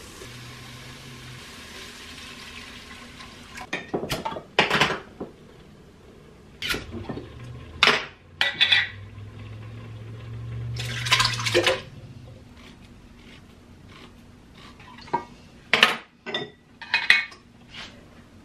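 Chopped peppers and onions sizzling in a stainless pressure-cooker pot, dying away after three or four seconds. Then glass canning jars, metal lids and utensils clinking and clattering on a kitchen counter, about ten separate knocks with a longer clatter near the middle.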